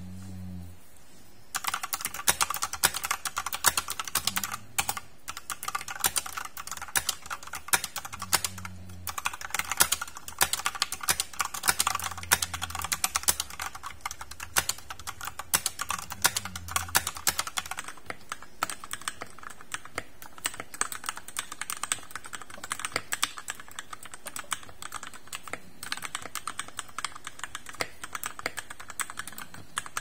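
Fast, continuous typing on an Ajazz 870T mechanical keyboard with stock red linear switches. From about 17 seconds in, the typing is on a TOM680 mechanical keyboard with lubed Gateron switches and stabilizers, a PE foam mod and a tempest mod, and it sounds slightly quieter.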